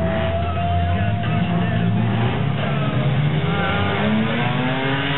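Holden Gemini with a Holden 202 straight-six, with a second car in the next lane, running at the drag-strip start line, then launching and accelerating hard. The engine pitch climbs from about three and a half seconds in.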